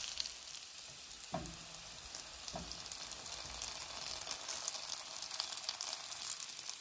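Dumplings frying in oil in a hot stainless steel pan, a steady sizzle with fine crackling: the browning step before they are flipped and steamed. Two short knocks break in about a second in and again a second later.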